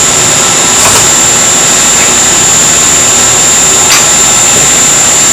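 Mazak SQT-15MSY CNC lathe running: a loud, steady hiss with a constant high whine, and brief knocks about a second in and again near four seconds as its tool turret moves.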